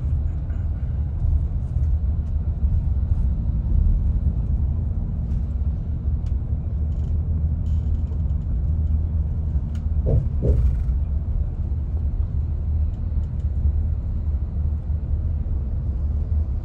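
Steady low rumble of a moving vehicle heard from inside it, with a couple of short higher sounds about ten seconds in.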